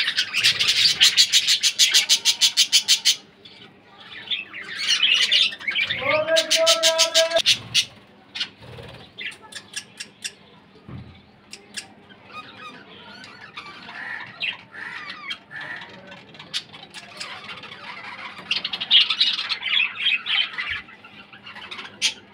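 A flock of budgerigars squawking and chattering: loud bouts of rapid harsh calls in the first three seconds and again around six to seven seconds, softer chatter in between, and another louder bout near the end.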